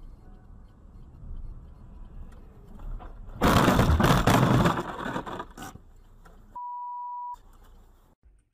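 Low road and engine noise, then a sudden loud rushing, crashing burst that fades over about two seconds as a cloud of snow thrown up by a lorry hits the dash-cam car. A steady single-tone beep follows, lasting under a second.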